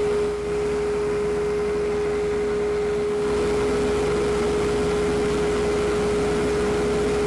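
Wood lathe running at a steady speed of about 1,200 RPM, its motor giving a steady whine over a low hum, with no tool cutting the wood.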